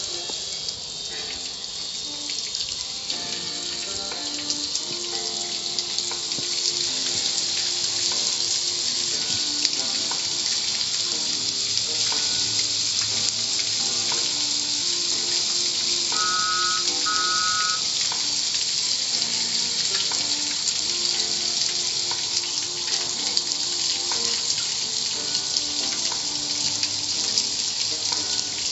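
Car wash water jets spraying steadily, a high hiss that grows a little louder over the first several seconds.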